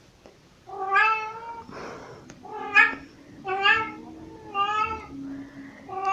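Domestic cat meowing over and over, a string of loud meows about a second apart that begins just under a second in.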